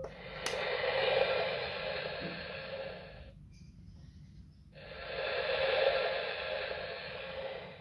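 VTech Starlight Sounds Hippo's speaker playing a soothing hiss that swells and fades twice, each swell about three seconds long, with a short pause between.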